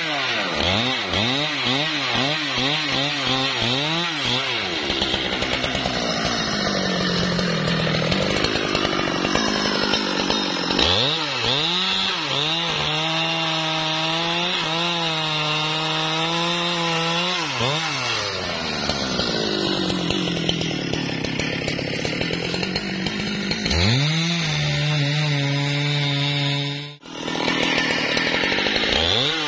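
Husqvarna 395 XP two-stroke chainsaw running and cutting wood. The throttle is blipped so the engine pitch rises and falls in quick swings at the start and near the end, with long stretches held at a steady high pitch while it cuts. The sound breaks off for an instant near the end.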